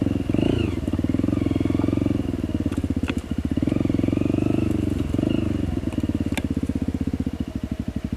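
Trail motorcycle engine running at low revs with a fast steady firing beat, its pitch rising and falling a little with the throttle. A couple of sharp clicks about three and six seconds in.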